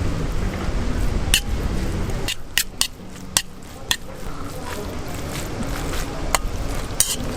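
Restaurant clatter: sharp clinks of dishes and utensils, several in quick succession about two to three seconds in and more scattered through, over a steady low background din.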